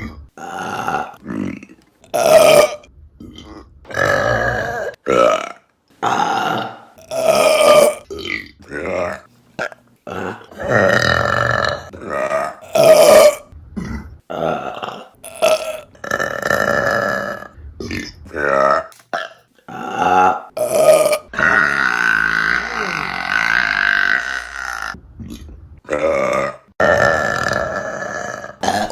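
Women burping: a rapid series of loud belches, mostly short, with one long drawn-out belch of about four seconds about three-quarters of the way in.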